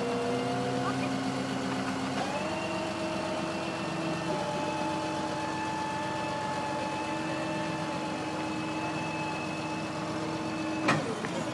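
Motor vehicle engine running steadily with a whining tone. Its pitch steps up about two seconds in and then holds, and two sharp clicks come near the end.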